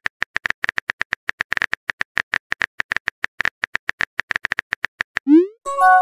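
Synthetic phone-keyboard typing clicks from a texting-story app, rapid and even at about nine a second, as a message is typed. Near the end a short rising swoosh as the message is sent, then a chime as it appears.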